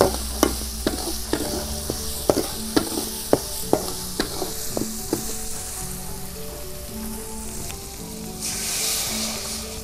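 Metal spatula scraping and tapping an aluminium wok about twice a second while vegetables and spice paste sizzle in hot oil; the tapping stops about halfway. Near the end the sizzling swells into a louder rush as coconut milk is poured into the hot wok.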